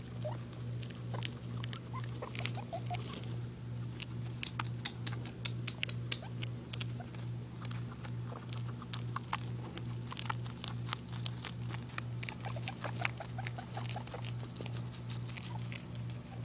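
Guinea pigs rustling and nibbling in wood-shaving bedding: a continuous scatter of small dry clicks and crackles, busier in the second half, over a steady low pulsing hum.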